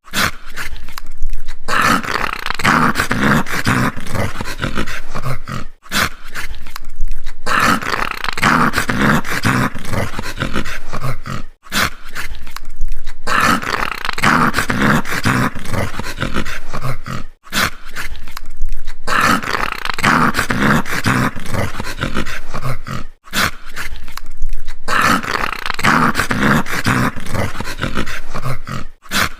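A dog growling in rough, rumbling bouts. The same take of about six seconds repeats about five times, each pass cut off by a brief moment of silence.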